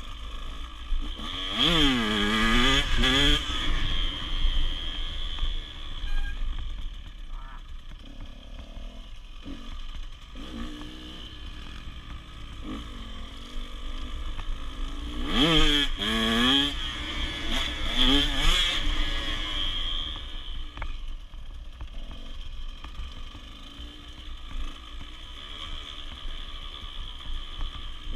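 Small dirt bike's engine revving as it is ridden, its pitch sweeping up and down through the gears. It revs hard twice, a couple of seconds in and about halfway through, and runs quieter in between. A low rumble of wind on the microphone runs under it.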